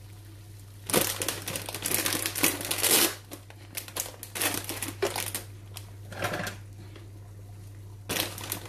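Plastic pasta packet crinkling in bursts as it is handled: a long stretch of crackling in the first few seconds, shorter bursts in the middle, and more near the end.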